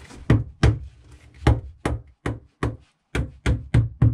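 Mallet repeatedly striking the JP3 rudder bearing to knock it down into its housing in the hull. There are about ten sharp knocks at two to three a second, with a short pause about a second in and another near three seconds.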